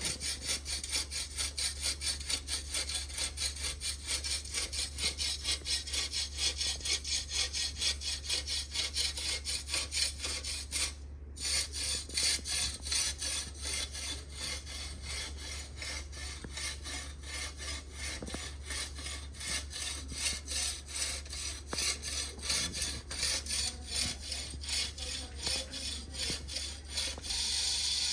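A recorded sound effect plays through a small 4-ohm speaker driven by a DFPlayer Mini MP3 module: a rhythmic rasping noise at about two to three strokes a second over a steady low hum. It cuts out for a moment about eleven seconds in, then carries on, and near the end it changes to a steady hiss.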